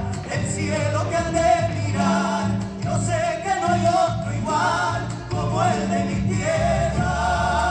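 Argentine chacarera music: a singing voice with vibrato, holding long notes over a steady instrumental accompaniment.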